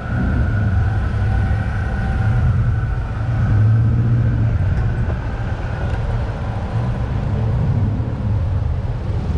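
Steady rumble of wind and road noise from a camera on a moving bicycle, with car traffic in the street, and a faint steady whine over the first few seconds.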